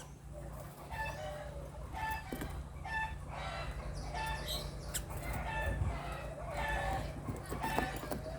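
Birds calling: short, even-pitched calls repeated every half second to a second, over a steady low hum.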